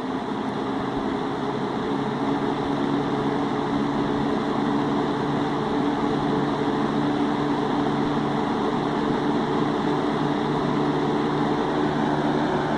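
1970s Hoover multipurpose box fan, a rebadged Kel-Air with a McMillan motor and wide plastic blades, running steadily on its high speed. A rush of moving air carries a steady low motor hum.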